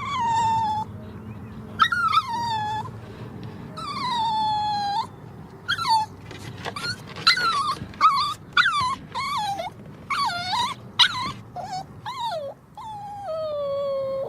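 Puppy whining: a string of high cries that each slide down in pitch, several long drawn-out whines with a run of quicker, shorter yelps in the middle, and a final long falling whine near the end.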